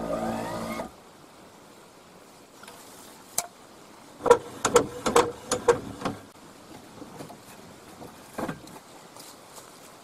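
Electric motor of an Enduro caravan mover whining with a rising pitch as it drives the trailer wheel up onto a levelling ramp, cutting off about a second in. Later, a quick run of sharp clicks and knocks about four to six seconds in, and one more knock near the end.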